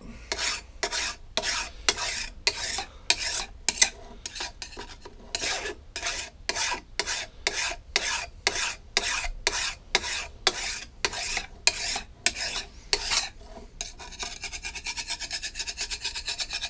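Flat file rasping along the edge of a Stihl chainsaw guide bar, dressing burrs off the bar rails in steady strokes, about two or three a second. About fourteen seconds in, the strokes turn short and rapid.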